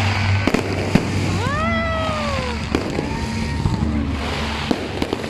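Fireworks display: sharp bangs and cracks from bursting shells, with whistling tones that rise and then fall in pitch over about a second each. A steady low hum runs underneath.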